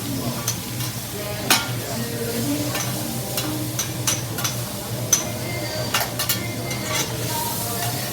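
Food sizzling on a hibachi teppanyaki griddle while the chef's metal spatula scrapes and clacks against the steel plate in sharp, irregular taps, over a steady low hum.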